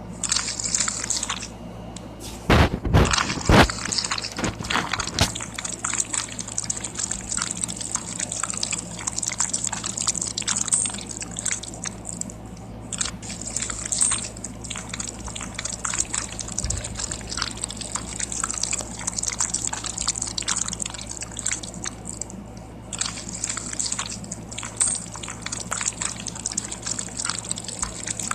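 Slime being squished and worked by hand, making a continuous run of wet clicks, pops and squelches, with a few louder pops about three seconds in.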